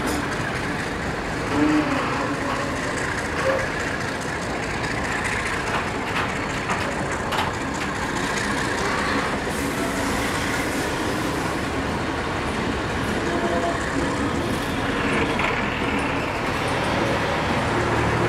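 Heritage passenger carriages rolling past on the track, a steady rumble of wheels on rail with a few sharp clicks. A low hum grows louder near the end.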